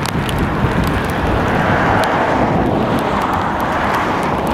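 Boeing 777-300ER's GE90 turbofan engines heard on final approach as a steady jet noise, mixed with wind buffeting the microphone.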